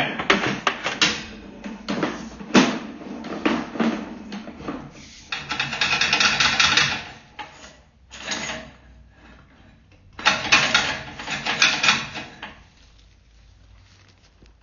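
Sewer inspection camera's push cable being pulled back out of the drain line: irregular clicks and knocks, then several bursts of rattling, going quieter for the last couple of seconds.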